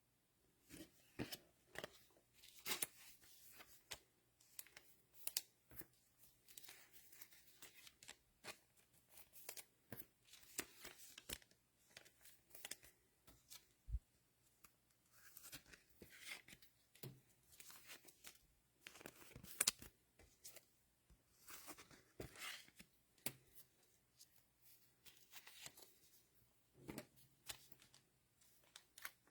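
Faint, scattered rustling and clicking of cellophane trading-card packs being torn open and the cards handled.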